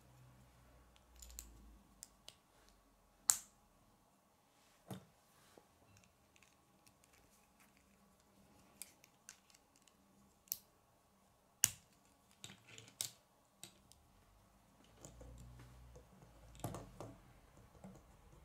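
K'nex plastic rods and connectors clicking as they are handled and snapped together by hand: scattered light clicks with a handful of sharper, louder snaps, and some soft plastic rattling near the end.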